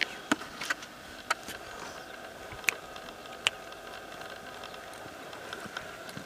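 A saddled quarter horse walking on arena dirt: a few sharp, irregular clicks from its hooves and tack over a faint steady hum.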